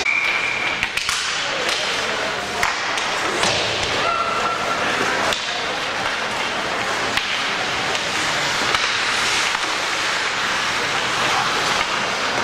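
Game ambience: a steady noisy din with scattered knocks and thuds and indistinct voices.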